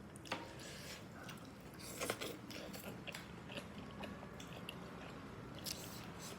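A person chewing and biting steamed chicken momo close to the microphone: soft mouth sounds with a few short sharp clicks.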